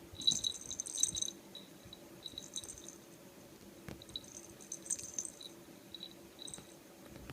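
A kitten's toy ball rattling and jingling in irregular bursts as it is batted and rolled, loudest about a second in.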